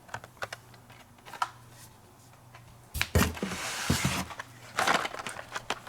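Hot Wheels blister-card packages being handled, with light plastic clicks and taps, a burst of crinkly plastic-and-cardboard rustling about three seconds in, and a shorter one near five seconds.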